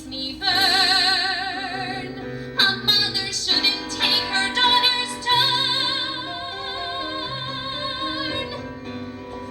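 A woman singing a show tune with wide, operatic vibrato over accompaniment, in short phrases and then a long held note in the second half.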